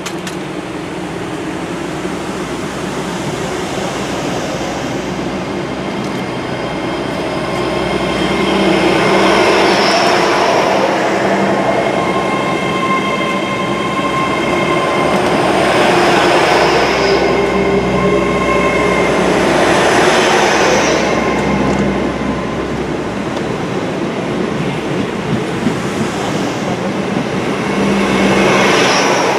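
A GWR Hitachi Intercity Express Train (Class 800-series) running past along the platform. Its wheels rumble on the rails under a steady whine, and the sound swells and fades several times as the carriages go by.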